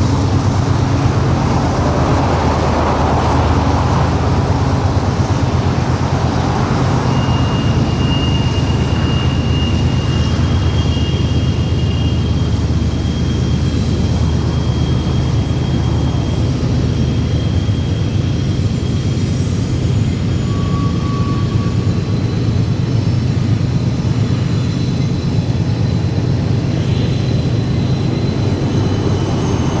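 Train running, a steady low rumble and drone at an even level, with faint thin high squeals coming and going over it from about a quarter of the way in.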